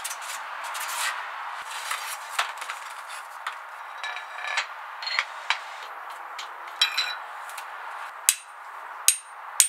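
Metal handling clinks and scrapes from the saw blade being changed on a DeWalt radial arm saw: the blade guard lifted off, a Freud blade slid onto the arbor and a wrench fitted to the arbor nut. There are a few sharp metallic clicks with a short ring near the end.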